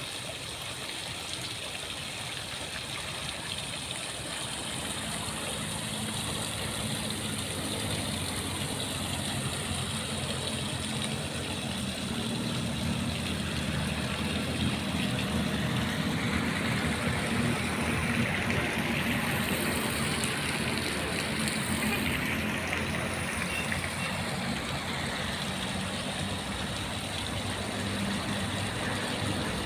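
A motor vehicle's engine running, growing louder through the first two-thirds and easing a little near the end.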